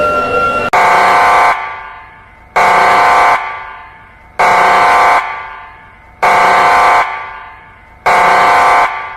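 Emergency alert horn sounding in loud, short repeated blasts, each a chord of steady tones lasting under a second with an echoing fade, about one every two seconds.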